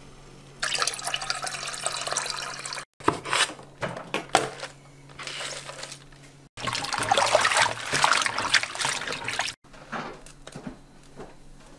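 Kitchen water sounds in short clips joined by abrupt cuts: liquid rushing and pouring for a couple of seconds twice, with scattered knocks and taps of handling in between.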